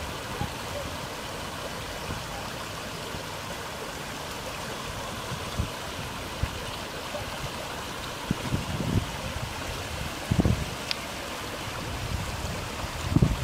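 Muddy floodwater of a swollen wadi flowing steadily over its bed. A few low thumps on the microphone come about two-thirds of the way through and again near the end.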